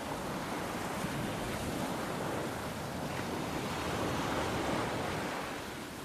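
Sea surf washing in steadily, mixed with wind, swelling a little past the middle and easing near the end.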